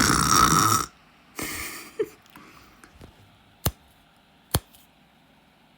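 A person imitating snoring with her throat and nose: a loud raspy snore for the first second, then a softer breathy one about a second and a half in. Two sharp clicks follow, about a second apart.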